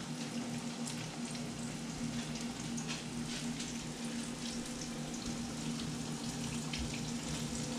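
Gar fish balls frying in a pan of hot oil: a steady sizzle with scattered small crackles and pops.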